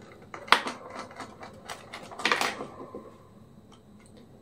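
Clicks and light knocks of small plastic and metal laptop parts being handled, with one sharp click about half a second in and a short cluster of rattling clicks a little after two seconds.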